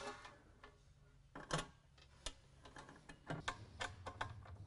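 Faint, light clicks and small metal taps of screws and aluminum T-slot parts being handled and fitted together, a few scattered at first and coming more often in the last second and a half.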